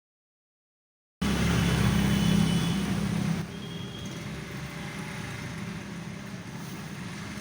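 Small generator engine running steadily, starting abruptly after about a second of silence and dropping in level about two seconds later.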